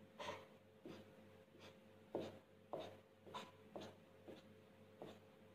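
Marker pen drawing short strokes on paper: about ten quick, faint scratches, one after another.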